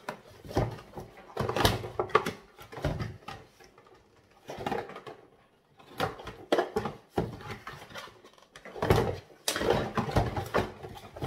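A plastic microwave steamer and its packaging being handled and opened: irregular rustling, plastic clicks and light knocks.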